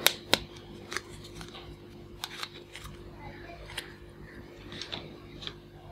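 Hard plastic toys handled on a tabletop: a plastic toy hand grenade turned in the fingers and set down, giving sharp clicks and taps. Two loud clicks come right at the start, then scattered lighter ones.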